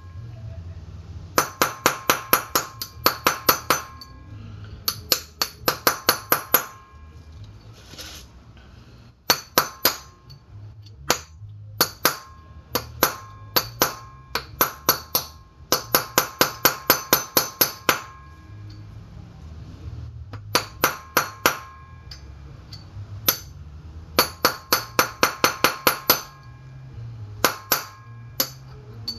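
Hammer blows on an old bearing race used as a driver, seating a new outer bearing race into a front wheel hub: quick runs of ringing metal-on-metal strikes, about four or five a second, broken by short pauses.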